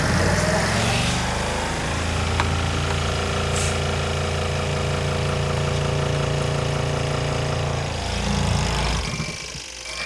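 Motor of a compact portable twin-tub washing machine spinning up in its spin-dry basket: a hum that rises in pitch over the first couple of seconds, then runs steadily, and quietens near the end.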